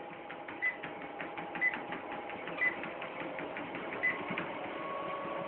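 Treadmill running steadily: a motor hum with fast, even ticking from the moving belt, and a sharper click about once a second.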